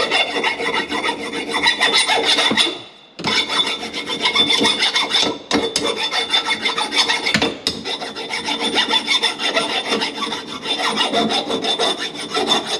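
A metal file rasping across the face of a brass drain nipple in quick back-and-forth strokes, with a short pause about three seconds in. The filing deburrs the nipple's face, taking off its sharp edges.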